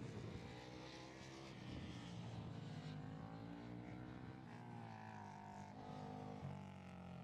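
Several racing motorcycle engines running at once, their pitches sliding slowly up and down as the throttles are worked.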